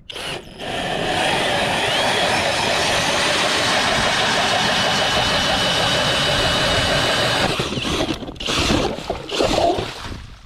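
Kobalt 24-volt cordless drill spinning an ice auger through the ice: a steady grinding whir from about a second in, then several shorter bursts near the end.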